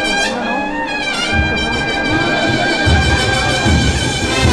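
Cornet and drum band (banda de cornetas y tambores) playing a Holy Week procession march: long held cornet notes, joined about a second and a half in by heavy bass drum beats.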